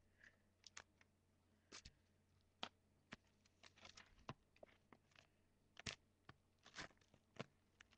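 Scissors cutting open a paper mailer envelope: faint, scattered snips and clicks of the blades and of the paper being handled.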